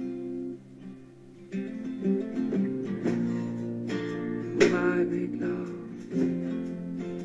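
Background music led by a plucked acoustic guitar, the notes picked out in a steady, quick pattern.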